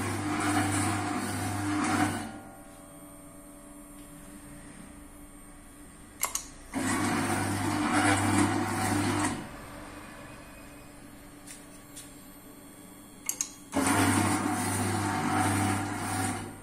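Programmable auger (screw) filling machine dosing three times: the screw motor runs with a steady hum for about two and a half seconds at a time, about seven seconds apart. A short click comes just before the second and third runs. These first three doses are discarded while the machine's weight adjusts toward its 150 g setting.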